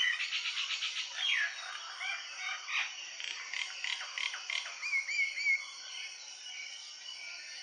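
Several birds singing and calling together in a morning chorus. A quick run of repeated chirps opens it, then overlapping whistles and slurred notes follow, with three short arched whistles about five seconds in. It is quieter over the last couple of seconds.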